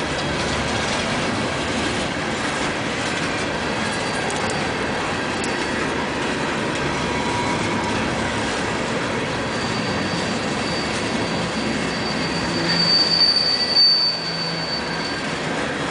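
CSX coal cars rolling past on the rails: a steady rumble of steel wheels on track. A high, thin wheel squeal comes in a little past halfway, grows loudest near the end, then fades.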